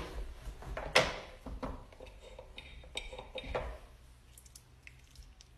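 Small handling noises: a scatter of clicks and light knocks, the sharpest about a second in, fading to faint ticks in the second half.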